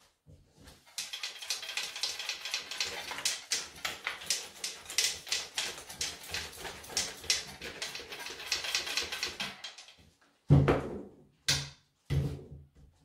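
A Husqvarna chainsaw shaken by hand to flush loose chips from its tank: a fast, dense rattling for about nine seconds. It is then set down on the table with a loud thud, followed by two sharper knocks.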